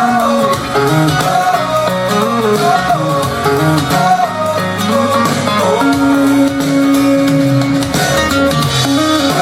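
Instrumental passage of a pop song, led by guitar over a steady beat, with no singing; a long held note sounds from about six to eight seconds in.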